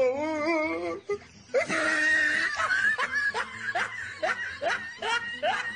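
A young boy crying while being soaped and rinsed, soap in his eyes: a high, wavering wail, then short rising sobs about two or three a second.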